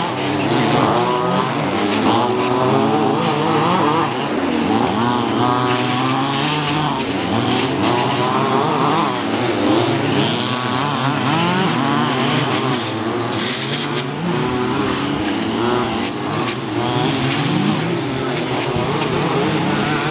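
Several 1/5-scale HPI Baja petrol RC cars racing, their small two-stroke engines buzzing and revving up and down over each other.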